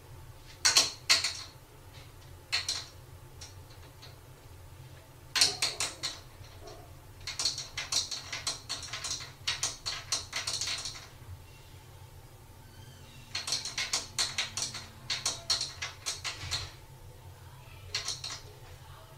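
Cupboard doors held by a child lock rattling and clicking as kittens paw and pull at them. The sound comes in repeated bursts of rapid clicks, some lasting a few seconds, as the doors shift against the lock, which holds them shut.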